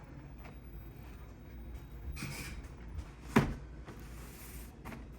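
A single sharp knock a little past three seconds in, with a few soft brief rustles around it over a low steady hum.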